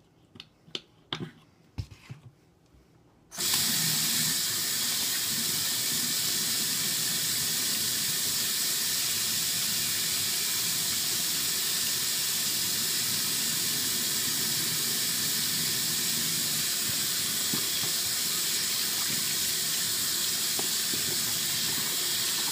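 A few faint clicks of a pump soap dispenser and hands being rubbed. Then, about three seconds in, the bathroom faucet is turned on suddenly and runs steadily into the sink while hands are washed under it.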